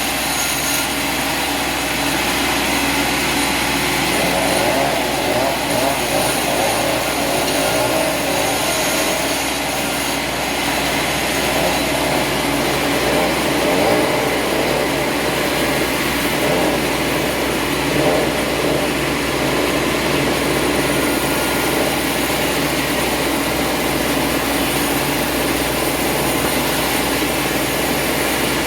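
A steady mechanical noise like an engine running, holding an even level throughout.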